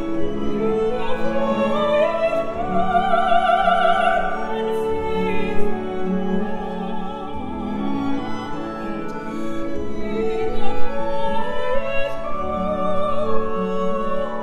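A woman singing an operatic line with strong vibrato over a chamber orchestra of bowed strings. Her voice rises to a long held high note a few seconds in, then climbs again in a second phrase near the end.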